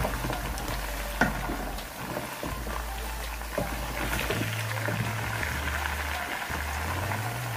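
Chunks of turkey deep-frying in hot oil, sizzling and crackling steadily as a wooden spoon stirs them, with a sharp knock of the spoon against the pot about a second in.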